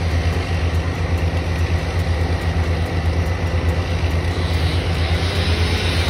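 Heavy equipment engine running steadily at idle, a low hum that pulses rapidly.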